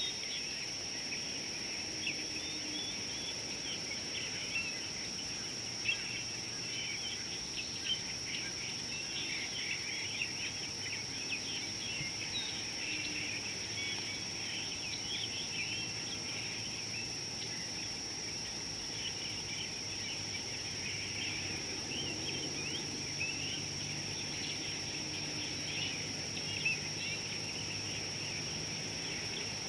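Dry-bush ambience: many small bird chirps and calls over a steady high-pitched whine, with a few faint clicks.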